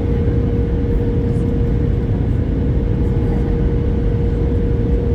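Airliner cabin noise on approach to landing: a loud, even rumble of the jet engines and airflow past the fuselage, with a steady mid-pitched hum running through it.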